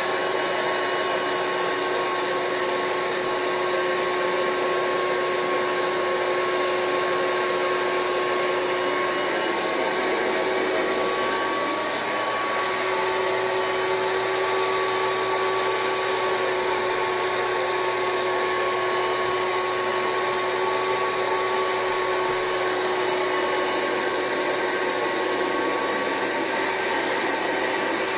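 Rug Doctor carpet extractor's vacuum motor running steadily with a whine, the upholstery hand tool sucking cold rinse water back out of mattress fabric on a first water-only extraction pass.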